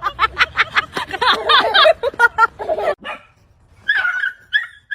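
Dog barking in a fast run of short, high yaps for about three seconds, then a brief pause and a few fainter yelps near the end.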